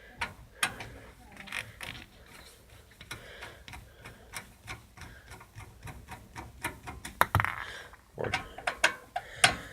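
Screwdriver backing out the screws that hold a desktop PC's power supply in its case: a run of irregular small clicks and ticks, with a few louder knocks in the last few seconds.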